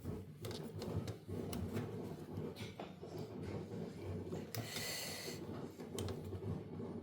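Scattered light clicks and handling noises from parts being worked by hand during a washing-machine repair, with one short breathy exhale of effort about five seconds in.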